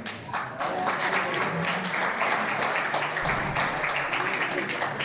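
Spectators applauding, starting abruptly and holding steady, with voices calling out among the clapping.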